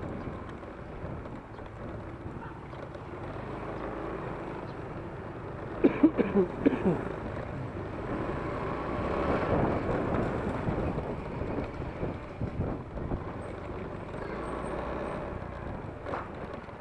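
Outdoor vehicle noise: a steady rumble of traffic that swells for a few seconds near the middle, as if a vehicle passes, with a brief cluster of sharp sounds and voices about six seconds in.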